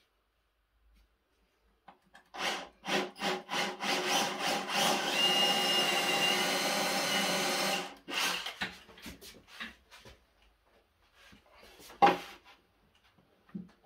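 Cordless drill boring into a wooden board: a few short trigger bursts, then a steady run of about four seconds that stops abruptly about eight seconds in, followed by a few more short bursts. A single sharp knock near the end is the loudest sound.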